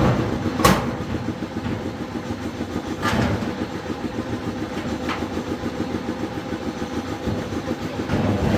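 An engine running steadily, with three sharp knocks about a second, three seconds and five seconds in.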